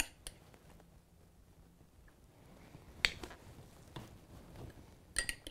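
A metal fork clinking against a small glass bowl as sauce is stirred: a fast run of light clicks near the end. Before that it is mostly quiet, with one sharp click about three seconds in.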